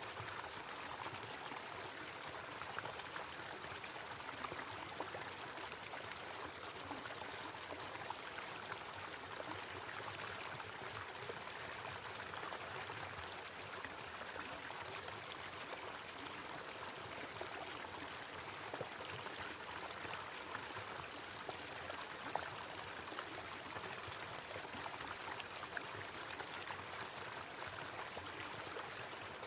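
Small waterfall: water falling and splashing in a steady, even rush with a few faint splashy ticks.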